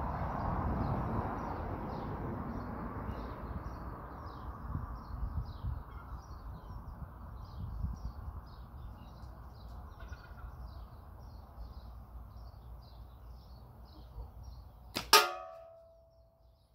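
One sharp metallic hit near the end that rings for under a second and dies away: catapult ammo striking the hanging metal target. Before it there is only a steady low rumble.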